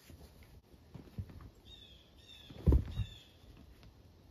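A person moving about in snow while handling a strap and load: a few soft footsteps and two dull thumps just under three seconds in, the loudest sounds. Three short, high, falling chirps of a bird sound over them.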